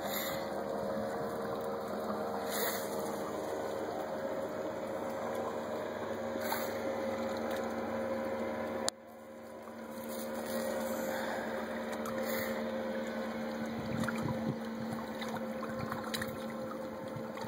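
A steady mechanical hum with two held tones over background noise, like a motor running at a distance. The sound drops suddenly about nine seconds in and then slowly builds back.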